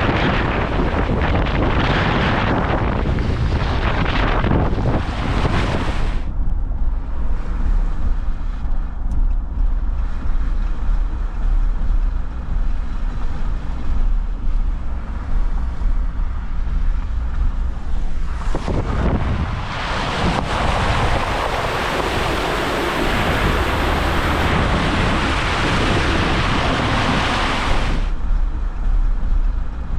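Wind buffeting the microphone with a steady low rumble, and a loud rushing hiss of water during the first six seconds and again for about nine seconds from a little before the 20-second mark.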